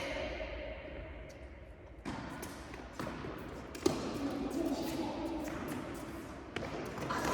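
Tennis balls being struck by rackets and bouncing on an indoor court during a rally: four sharp hits about a second apart, the loudest near the middle, with faint voices behind.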